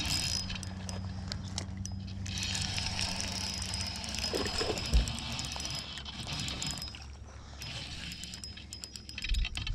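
Spinning reel being cranked steadily, its gears whirring as line is wound in on a hooked bass, with a single thump about five seconds in.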